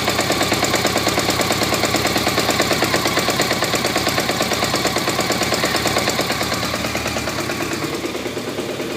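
1991 BMW K100RS 16V inline-four engine running with a hard, rapid, evenly repeating rattle from where the engine joins the gearbox, which the owner suspects is a clutch problem.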